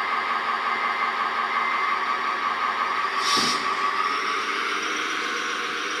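Hydraulic pump of a radio-controlled excavator whining steadily as it works, with a brief hiss about three seconds in; the whine fades after about four seconds.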